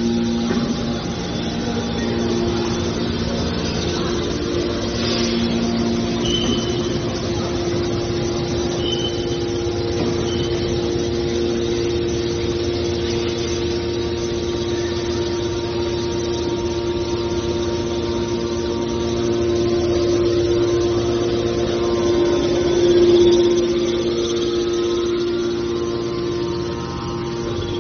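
Hydraulic scrap metal baler's electric motor and pump running with a steady hum and whine, swelling briefly late on. A few short high squeaks in the first third.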